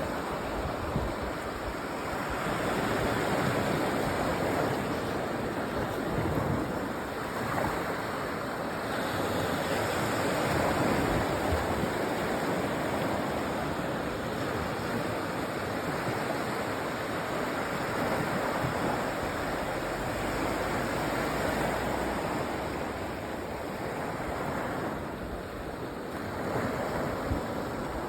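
Sea waves washing onto a sandy beach, a steady surf that swells and eases every few seconds, with some wind noise on the microphone.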